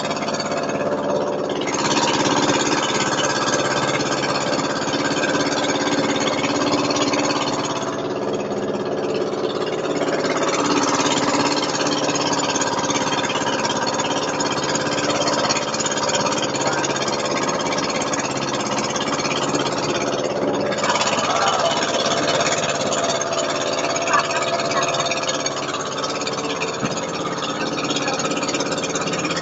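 Engine of a wooden outrigger boat (bangka) running steadily under way, with a rushing hiss of water and wind that rises and falls.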